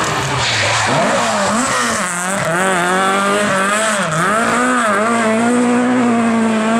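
Rally car engine revving hard on a stage, its pitch rising and dropping several times with throttle lifts and gear changes, then holding a steady high note near the end.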